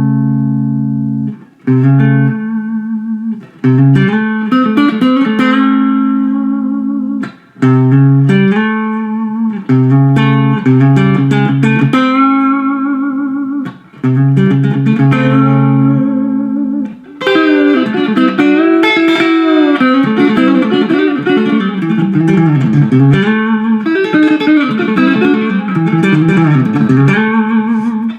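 Electric guitar playing a country chicken-pickin' lick, plucked with pick and fingers. Short ringing phrases stop every couple of seconds, then about 17 seconds in a continuous fast run of notes with slides takes over.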